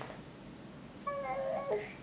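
A toddler's short, high-pitched babbling vocalization about a second in, wavering through a couple of pitch steps and dropping at the end.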